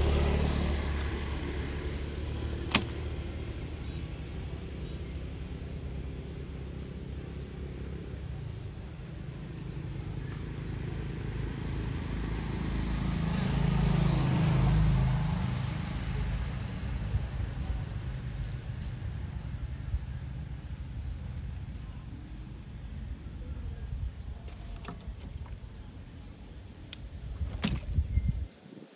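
Low, steady rumble of a motor vehicle's engine running nearby, growing louder around the middle and stopping abruptly just before the end, with a few sharp clicks over it.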